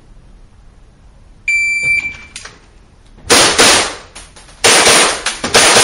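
Electronic shot-timer start beep, a single steady tone about half a second long, followed about a second and a half later by a rapid string of pistol shots fired in quick pairs.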